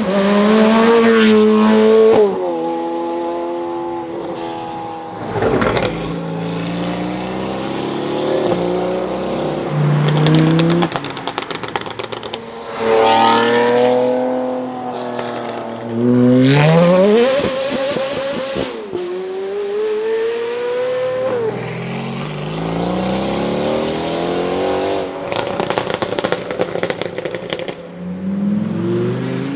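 Mercedes-AMG GT R's twin-turbo V8 running loud through an aftermarket Fi (Frequency Intelligent) exhaust, revving and accelerating several times. Its pitch climbs and falls with each pull.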